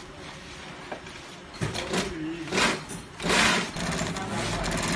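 Siruba post-bed industrial sewing machine running, stitching boxing-glove panels. It is quieter for the first second and a half, then runs steadily with a few louder surges as the panel is fed through.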